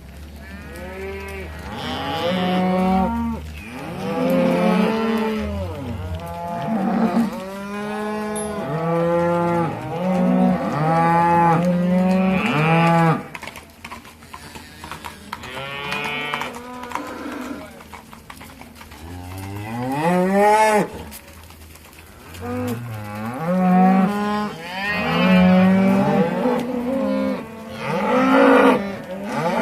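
A herd of cattle being driven past, mooing continually in many overlapping calls, thinning out to a quieter lull midway before the calling picks up again.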